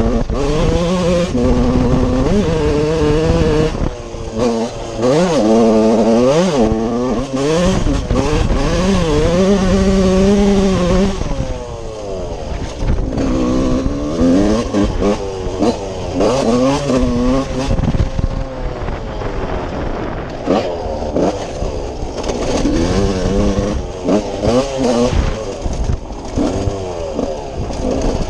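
TM Racing 125 two-stroke motocross engine revving hard under way, its pitch repeatedly climbing and then dropping back as the throttle opens and closes.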